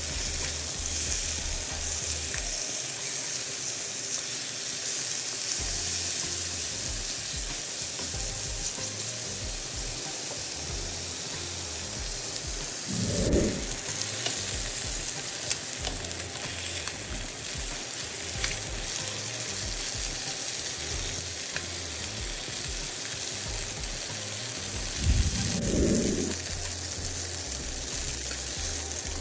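Tandoori-marinated chicken drumsticks sizzling steadily as they fry in hot oil in a non-stick pan. Twice there is a brief louder shuffle as the pieces are moved with metal tongs, once about halfway through and once near the end.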